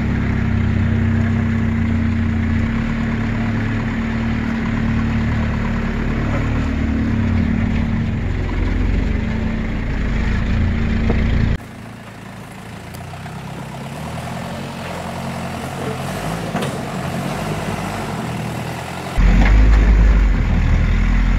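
Land Rover Perentie 110's Isuzu 3.9-litre four-cylinder diesel running at low revs as it crawls up a tight rock chute. The sound drops off sharply a little past halfway, then comes back as a loud low rumble near the end.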